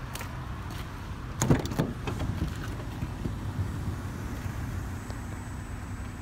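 2018 Dodge Grand Caravan's sliding side door being opened. A cluster of sharp clacks about a second and a half in as the handle and latch release, then the door running back along its track over a steady low rumble.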